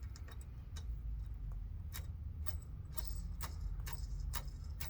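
Faint, irregular metallic clicks, roughly two a second, as the bearing, washers and bolt are fitted and threaded back onto the mobility scooter's front wheel axle.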